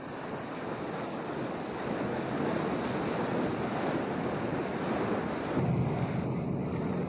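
Heavy sea and wind: a warship's bow pushing through big waves, a rushing wash that grows steadily louder. A little over five seconds in it gives way to a steady low hum.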